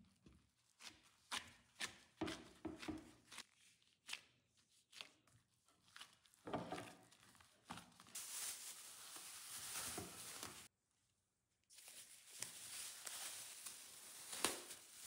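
A wooden spoon stirring and scraping a flour-and-liquid dough in a bamboo bowl, a run of soft knocks and scrapes. Then a steady rustle of a plastic-gloved hand working the dough, and after a short break, clear plastic film crinkling as it is stretched over the bowl.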